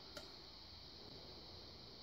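Near silence with one faint click about a fifth of a second in, from a lock pick working the pins of a five-pin pin-tumbler lock.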